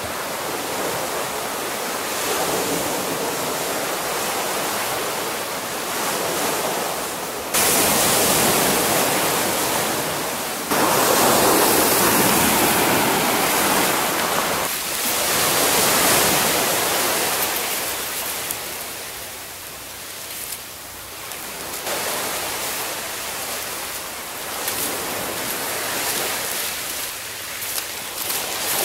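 Steady rushing wash of sea surf breaking on a sandy shore, swelling and easing over several seconds. It jumps suddenly louder about 7 and 11 seconds in.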